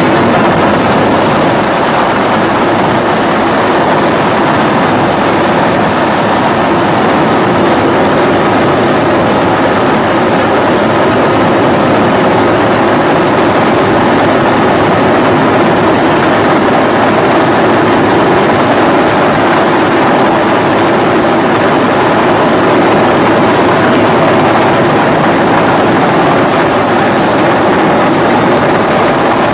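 Loud, steady engine drone mixed with a rushing noise, with no letup or change.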